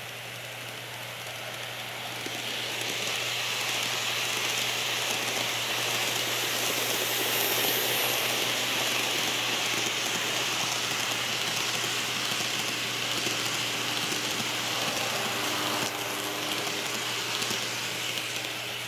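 N-gauge model electric commuter train running along the track past the microphone. Wheels roll on the rails with a steady rushing rattle that swells over the first few seconds as the train approaches, holds while the cars go by and eases near the end.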